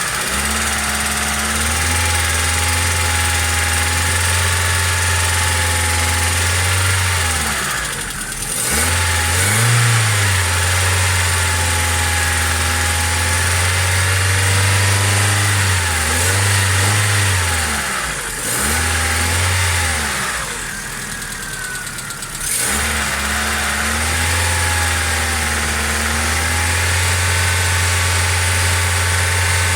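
Car engine idling, revved up in a few short blips and settling back each time. The revving is meant to quiet a tapping hydraulic valve lifter.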